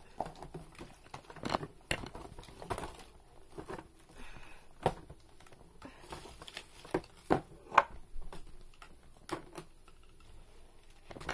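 Small objects being handled and sorted by hand: irregular light clicks, taps and rustling, with a few sharper knocks about five and eight seconds in.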